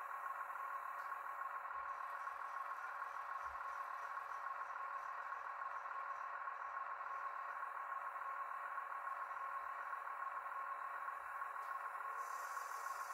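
Steady whine of the small electric drive of a scale RC truck crane as the boom slews and lowers its load, holding one pitch throughout.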